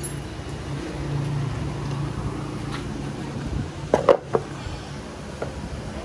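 A steady low hum with a quick run of three or four sharp knocks, close together, about four seconds in.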